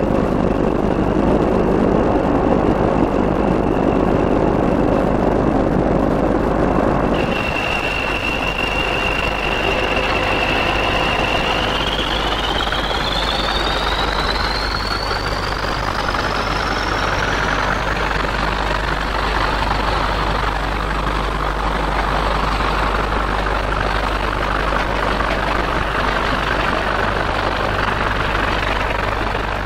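Diesel locomotive running, with a steady mechanical roar that changes abruptly about a quarter of the way in. A high whine then rises smoothly in pitch as the engine builds up power, and the roar carries on after it.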